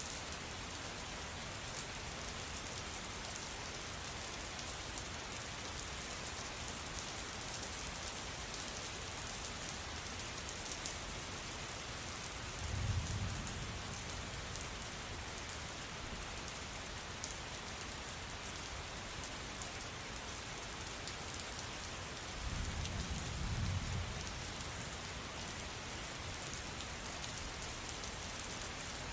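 Steady rain falling, with two brief low rumbles of thunder about ten seconds apart.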